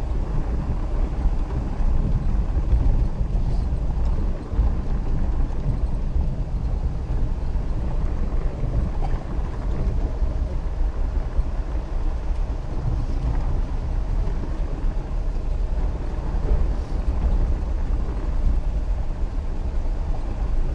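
Steady low rumble of a vehicle driving along a rough dirt track in heavy rain, heard from inside the cab, with the hiss of rain on the vehicle mixed in.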